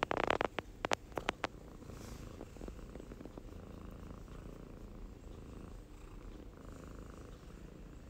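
Domestic cat purring steadily, recorded close up. A handful of sharp clicks and a short rustle come in the first second and a half.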